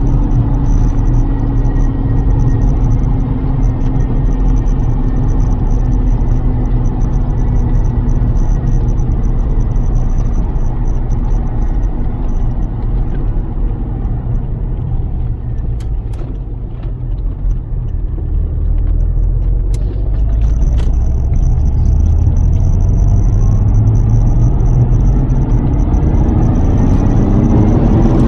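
Lotus Carlton's twin-turbo 3.6-litre straight-six running on the road: the engine note sinks slowly as the car eases off, goes a little quieter around the middle, then climbs in pitch as it accelerates near the end.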